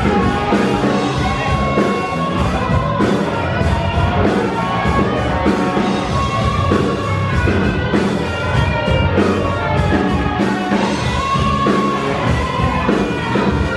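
Rock music with singing and guitar over a steady beat.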